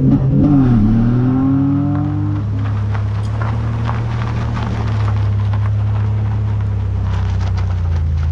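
Nissan Navara's VG30 V6 engine revving up over the first two seconds, then running at a steady pitch, with scattered ticking and crackling over it from about three seconds in.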